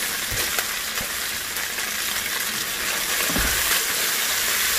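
Pork belly slices and bean-paste sauces sizzling steadily in oil in a frying pan while chopped long green onion goes in, with a few light knocks. The sizzle gets a little fuller about three seconds in.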